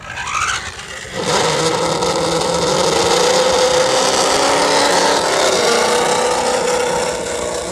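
An engine revving up briefly, then running at a steady, slightly wavering pitch.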